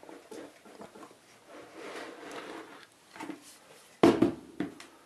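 A brass rod rolled under a wooden block over aluminium mesh on a cutting mat, giving faint scraping and crinkling as it embosses the foil beneath. About four seconds in comes a loud wooden knock followed by a few sharp clicks.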